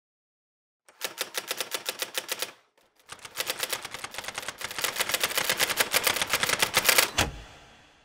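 Typewriter keys striking in rapid runs: a short burst of typing, a brief pause, then a longer, faster and louder burst. It ends in a heavy low thud that fades away.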